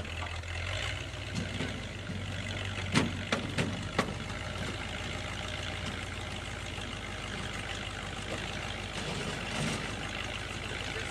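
Heavy vehicle engine running steadily, with a few sharp knocks about three to four seconds in.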